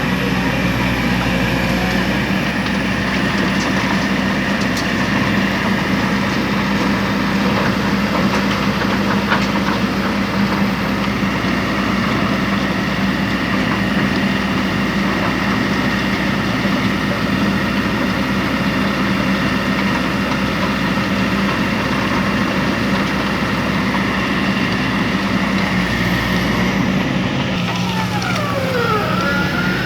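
Heavy diesel earth-moving machinery running steadily under load, with a whine that glides down in pitch near the end.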